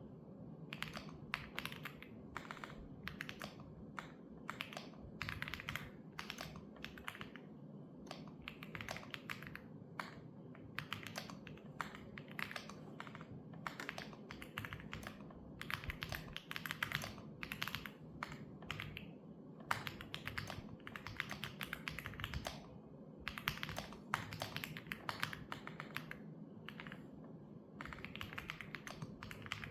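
Computer keyboard being typed on in fast, steady runs of key clicks with brief pauses between bursts.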